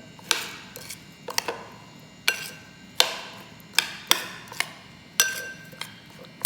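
A utensil knocks against a mixing bowl while sweet potato is stirred into a flour, water and sugar batter. About a dozen sharp taps come at an uneven pace, one or two a second, some ringing briefly.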